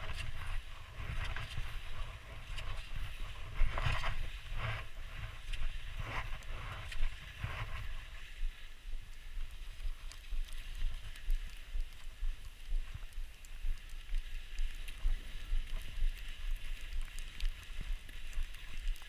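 Skis sliding and turning through deep powder snow: a continuous swishing hiss with irregular soft knocks, busier in the first half, over a low rumble on the microphone.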